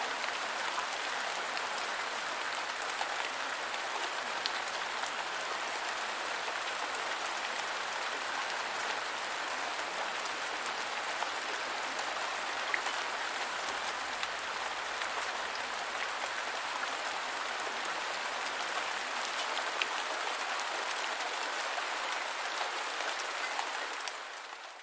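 Steady rain falling: an even hiss with scattered drop ticks, fading out near the end.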